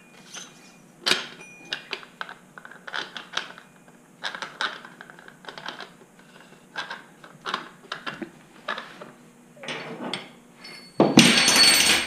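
DR-Z400 fork tubes and cartridge parts being handled and threaded by hand: scattered metal clicks, clinks and light knocks, then a noisy burst about a second long near the end that is a bit loud.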